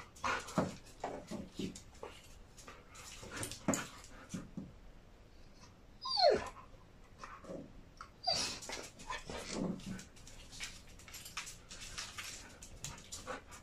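Husky vocalizing in a string of short calls, with a long call sliding down in pitch about six seconds in and another strong call at about eight seconds.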